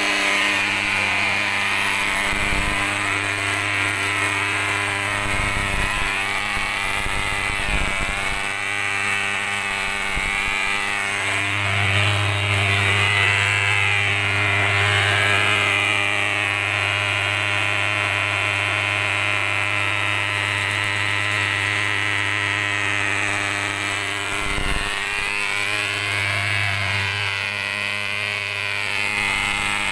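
Old diesel thermal fogging machine's pulse-jet engine running at low throttle while warming up: a loud, steady buzzing drone that briefly falters a few times.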